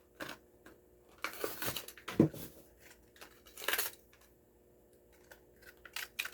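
Die-cast toy car blister pack being torn open by hand: cardboard ripping and plastic crackling in several short bursts.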